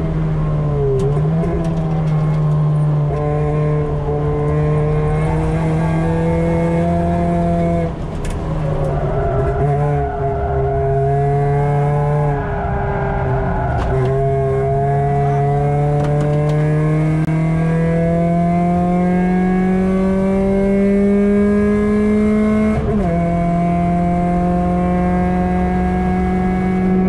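Ford 1.7 Puma four-cylinder engine with a 4-2-1 manifold and Milltek decat exhaust, heard from inside the cabin under hard track driving. Several lifts and gear changes break the note in the first half, then it climbs steadily in pitch through one long pull and drops sharply at an upshift near the end.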